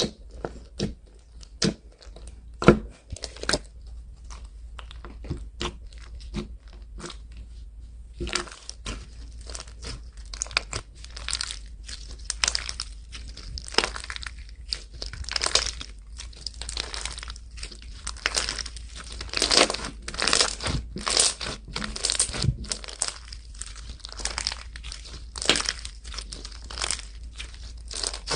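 Slime being squeezed and stretched by hand: a run of small crackles and pops, sparse at first and much denser from about eight seconds in.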